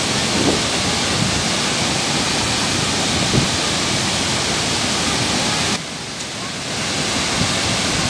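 A large, wide waterfall in heavy flow plunging into its pool: a steady, loud rush of falling water. About six seconds in it turns briefly quieter and duller for about a second.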